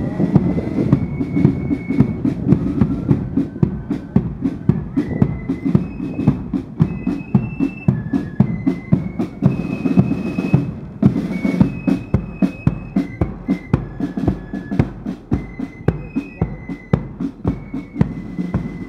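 Marching flute band playing: flutes carry a high melody over fast, steady snare drum beats.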